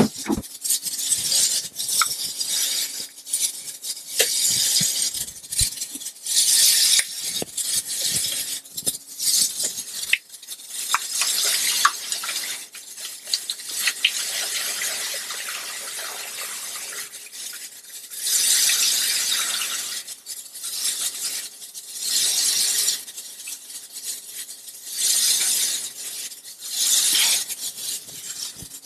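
Alcohol being poured from a plastic jug through a plastic funnel into a plastic reagent bottle, splashing in several separate pours of a second or two each. Between the pours come small knocks and clinks as the containers are handled.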